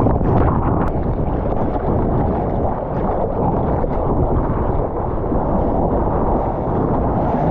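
Steady, heavy rush of wind and water over a surfer's GoPro microphone, low-pitched and unbroken.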